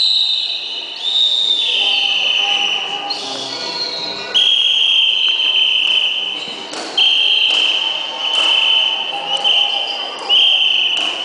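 A whistle blown in a run of long, shrill blasts, each held one to two seconds with short breaks between them and small jumps in pitch.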